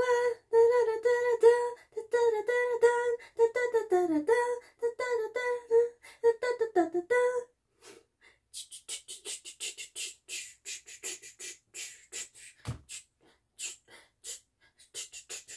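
A woman's voice doing wordless vocalizing: a run of short repeated sung notes with a couple of downward slides, then, from about eight seconds in, quick hissing "ts" mouth-percussion clicks in a beatbox style.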